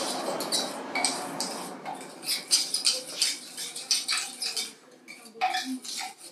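A brush stirring and scraping coloured clay slip (engobe) in a small glass jar, a quick irregular run of light clinks and scrapes against the glass that thins out about five seconds in. It is the sound of mixing slip colours together by hand.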